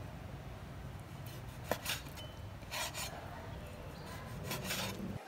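Cleaver slicing raw pork shoulder on a wooden cutting board: several short scrapes and taps of the blade on the board, in three small clusters, over a steady low hum.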